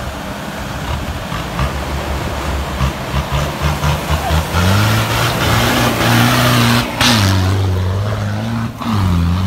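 A lifted off-road 4x4 pickup's engine revving hard over a loud hiss of tyres and flung dirt. The revs climb about four and a half seconds in and are held high. The sound breaks off for a moment near seven seconds, then the revs drop and climb again, with another dip near the end.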